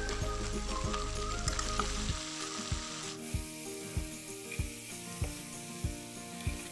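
Shredded bamboo shoots sizzling in hot oil in a metal wok, then a metal slotted spatula stirring and scraping them around the pan from about three seconds in, with regular short scrapes.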